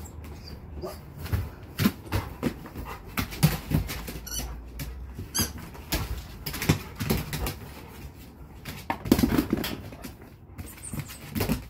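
Dog playing with toys on a hard floor: a string of thuds and scuffles, with two short high squeaks, like a squeaky toy, about four and five seconds in.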